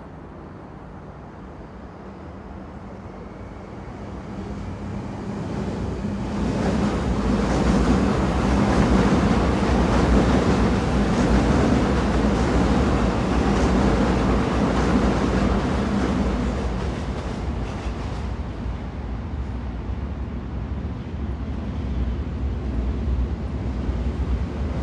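Train running noise: a steady rumble with a low steady hum, swelling over several seconds to a peak and then easing off again.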